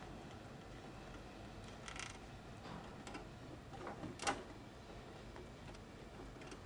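Faint plastic clicks and knocks from a hamster cage as the hamster shoves its top section up off the pink plastic base and it drops back. There is a small rattle about two seconds in, and a single sharper knock just after four seconds is the loudest.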